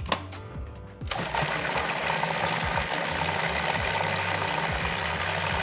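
A few clicks as the food processor's lid and pusher are fitted, then about a second in the Cuisinart food processor switches on and runs steadily, churning a thick avocado-chocolate mousse.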